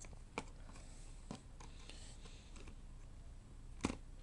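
A few faint clicks and knocks as a 2.5-inch hard drive is handled and fitted into the open laptop's drive bay, with a louder knock near the end.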